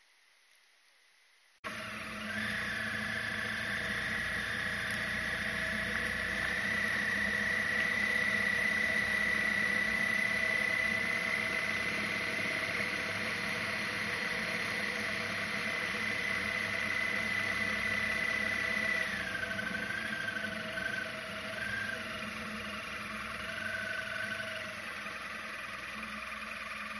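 After about a second and a half of near silence, a BMW R1250R motorcycle's boxer-twin engine running on the move. A steady high whine sits over it and drops and wavers about 19 seconds in.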